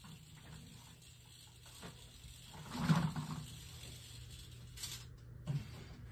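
Faint room tone with a steady low hum, broken about three seconds in by one brief soft sound and, near the end, by a couple of small clicks.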